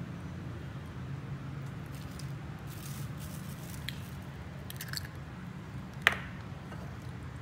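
Eggs being separated by hand: light clicks and wet squishes of eggshell halves and yolk, with one sharp click about six seconds in, over a steady low hum.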